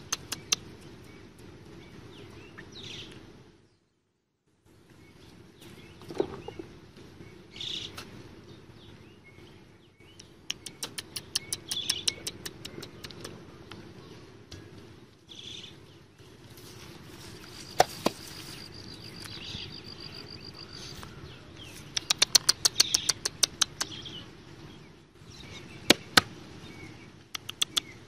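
Runs of quick sharp clicks and knocks from a hand digging tool chopping into wet soil, with birds chirping in the background.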